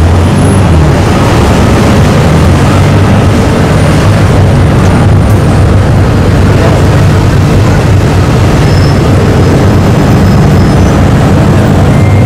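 Supercar engine running at low revs as the car crawls through slow traffic, a steady deep exhaust rumble over street noise.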